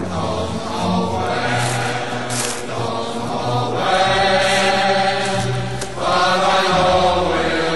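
Background music of slow chanting voices, choir-like, holding long notes.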